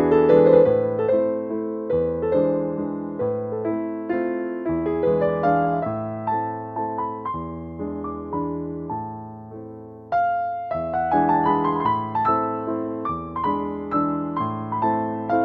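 Background piano music: a slow, gentle piece of struck notes that fade after each stroke, with a new phrase starting about ten seconds in.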